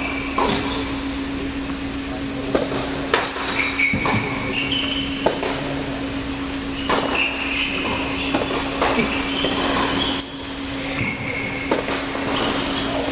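Tennis balls being struck and bouncing on an indoor hard court, irregular sharp knocks with short high squeaks of tennis shoes on the court surface. A steady hum runs underneath.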